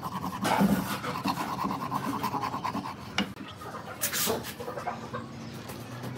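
Wood glue squeezed from a plastic bottle, sputtering and squelching in fast little pulses for the first couple of seconds. Then wooden pieces are set down on a wooden table top: a light click about three seconds in and a louder knock a second later.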